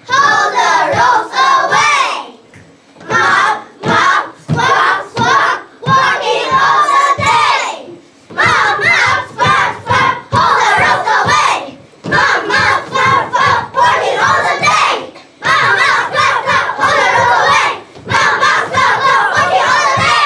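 A group of children shouting lines together in unison, in loud short phrases with brief pauses between.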